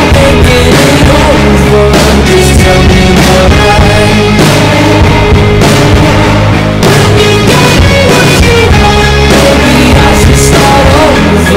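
Background rock song with a singer.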